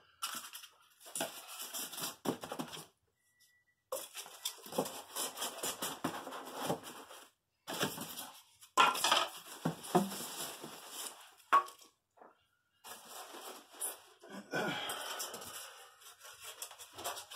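Styrofoam packing pieces and a cardboard box being handled, giving an irregular rustling and scraping with a few sharp knocks. The sound stops briefly several times.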